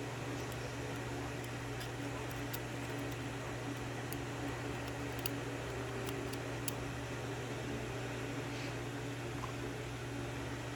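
Steady low hum with a few faint, sharp metallic ticks scattered through it, from the small pins, springs and parts of a disassembled Yale pin-tumbler lock cylinder being handled.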